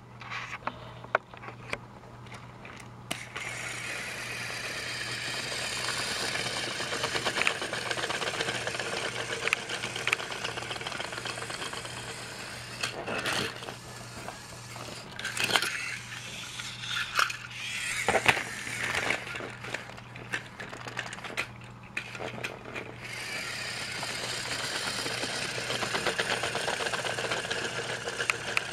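Motorized Trackmaster toy train running along plastic track: a steady small-motor whir with clicking and rattling from the wheels and wagons. It grows louder near the end as the train comes close.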